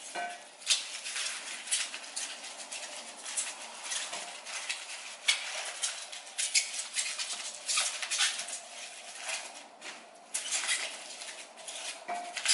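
Plastic fruit packaging crinkling and rustling in quick, irregular crackles as small oranges are pulled out of their yellow mesh wrapping, with light knocks of fruit being handled and set down.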